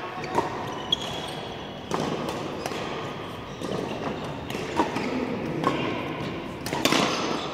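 Badminton rackets hitting a shuttlecock during play, heard as sharp single hits about a second apart, most of them in the second half.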